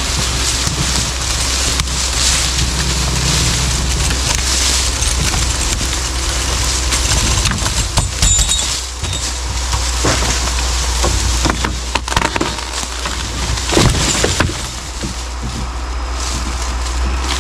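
Dry leaf litter and twigs crunching and snapping, with many sharp cracks, over a steady low hum.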